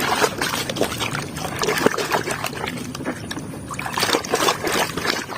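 Water splashing and sloshing as a muddy toy car is washed by hand in a basin, with irregular small knocks of the toy against the basin.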